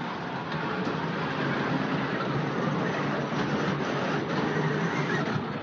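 Toy train running with a steady rumbling, rattling noise.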